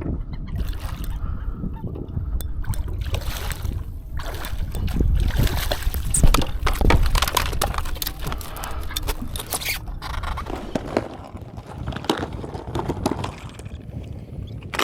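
Wind buffeting the microphone and water sloshing against the kayak hull, with scattered clicks and knocks throughout.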